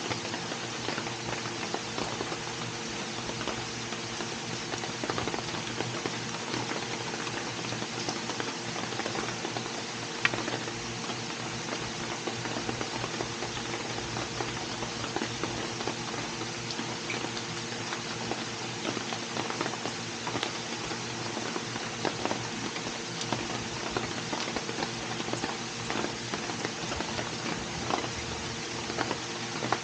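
Steady rain pattering, with many single drops ticking sharply and one louder tick about ten seconds in, over a steady low hum.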